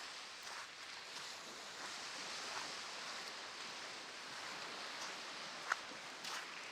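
Footsteps crunching in beach sand about every half second over a steady hiss of surf, with one sharp click near the end.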